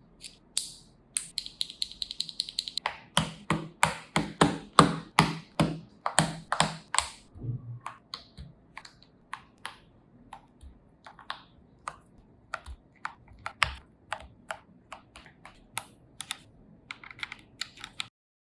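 Mechanical keyboard keys clacking under the fingers of someone typing. The keyboard is a GMK67 with Akko V3 Cream Yellow linear switches and XDA-profile keycaps. A quick, dense run of keystrokes over the first several seconds gives way to slower, scattered presses.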